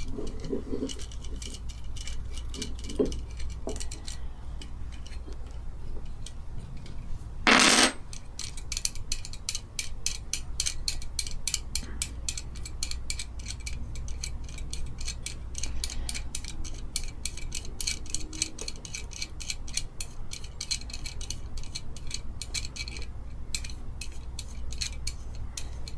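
Quick, even run of small metallic clicks as a tiny bolt on a sewing-machine motor is turned with a small hand tool, with one short louder noise about eight seconds in.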